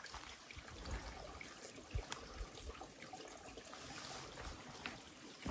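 A small forest rivulet trickling faintly over rocks and fallen leaves, with a couple of soft knocks.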